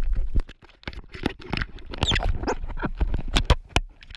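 Irregular clicks, taps and scrapes of an action camera and its mount being handled and turned around on a kayak deck.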